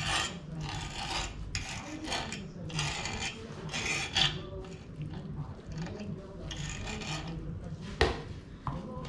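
Cooked beef tongue being shredded by hand on a wooden cutting board: repeated rasping scrapes of meat and fingers across the board, roughly one a second, with a sharp knock on the board about eight seconds in.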